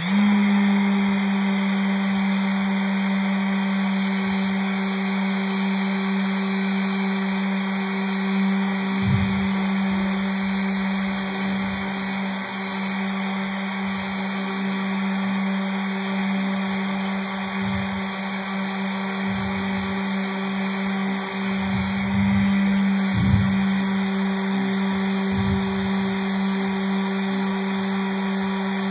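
Electric random orbital sander switched on and running steadily with a steady motor hum, sanding a veneer inlay piece flat. A few brief low knocks come through along the way.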